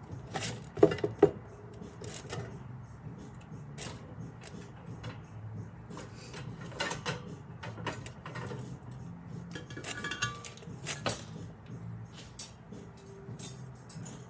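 Metal frame parts of a can organizer rack clinking and knocking against each other as it is assembled by hand, with two sharp clanks about a second in and a brief metallic ring around ten seconds in.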